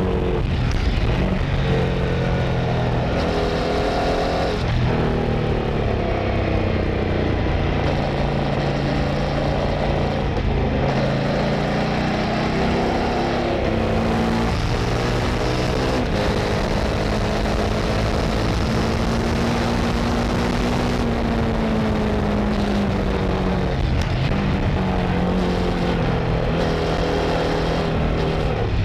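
Kove 800X Pro adventure motorcycle's engine and exhaust under way through corners, the pitch climbing as it accelerates and stepping down several times as it shifts or rolls off, with wind noise over it.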